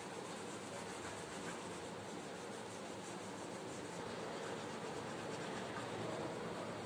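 Steady rubbing on paper as colour is worked into a poster sheet by hand.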